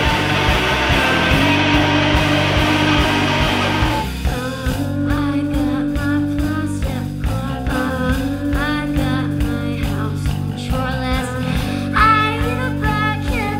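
Live rock band playing: distorted electric guitar, bass and drums in a dense wall of sound that drops back about four seconds in, when a voice starts singing over the bass and drums.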